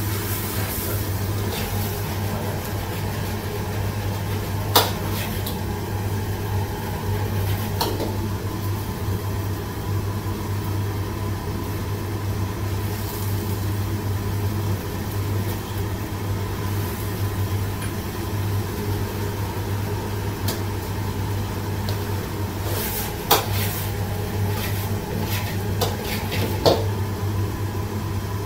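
Chinese ladle scraping and clanking against a wok as chilli-coated vegetables stir-fry with a sizzle, a few sharp clanks standing out, over a steady low hum.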